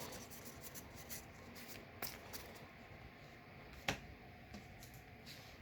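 Faint rustle of trading cards being handled, with two sharp clicks about two and four seconds in.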